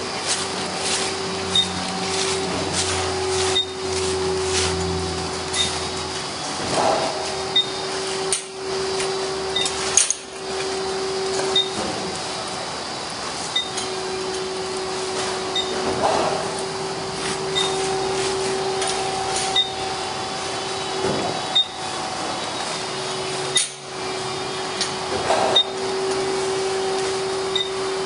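Lely Juno feed-pushing robot running, a steady electric whir from its drive as it moves along and pushes the feed, with a faint high tick repeating about every second and a half and a few scattered light knocks.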